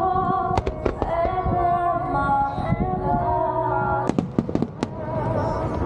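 Fireworks bursting with sharp cracks, a couple early and a quick cluster about four seconds in, over a sustained melodic ballad playing across the show grounds.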